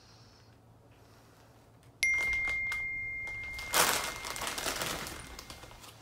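A single sharp ding from a text-message alert about two seconds in, ringing on as one clear tone that fades slowly. Then, from a little before four seconds, a foil potato-chip bag crinkles and rustles loudly as it is handled.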